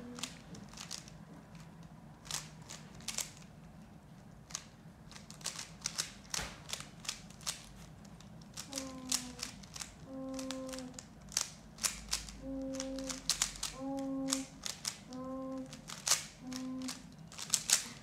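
Plastic 3x3 Rubik's cube being turned fast by hand: rapid clicks and clacks of its layers snapping round, in uneven runs with short pauses.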